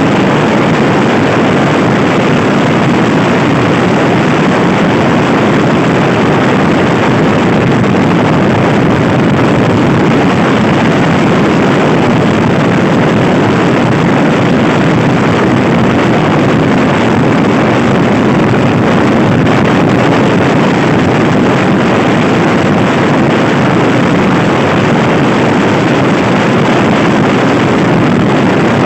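Loud, steady wind noise over the microphone of a Honda Scoopy i scooter ridden at speed.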